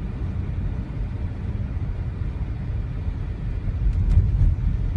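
Low, steady rumble of a car driving, heard from inside the cabin, with a few faint clicks about four seconds in.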